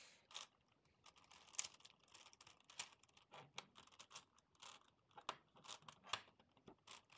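Gigaminx twisty puzzle being turned by hand: faint, irregular plastic clicks and scrapes as its layers are twisted, about one a second.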